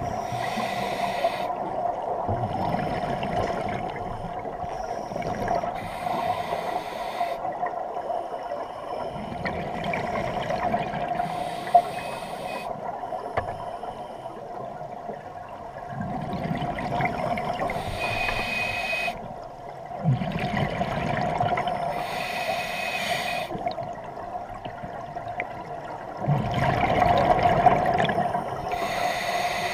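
Scuba diver breathing through a regulator underwater, heard muffled through a waterproof camera housing. Bursts of exhaled bubbles come about every four to six seconds over a steady low hum.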